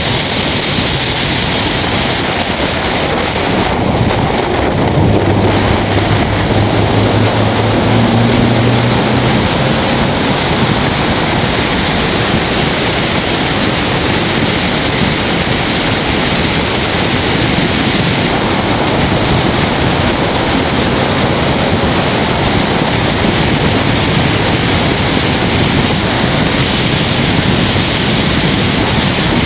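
Heavy wind rushing over a bonnet-mounted camera on a race car at speed, with engine and road noise beneath it. A low engine drone stands out for a few seconds about five seconds in.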